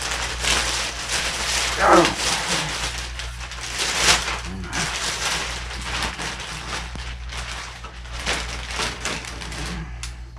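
Plastic packaging bag crinkling and rustling while an air rifle is pulled out of it. A short, falling, whine-like voice is heard about two seconds in.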